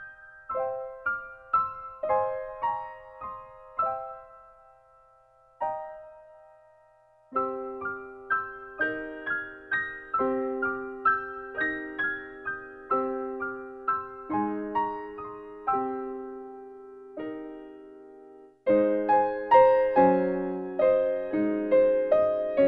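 Background piano music, notes and chords struck one after another in an even pattern. It thins to a single note about five seconds in, picks up again, and grows fuller and louder from about nineteen seconds in.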